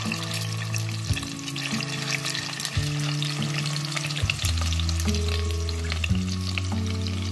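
Meatballs frying in hot oil in a steel pot: a steady crackling sizzle with many fine pops. Under it, background music of held low notes that change every second or so.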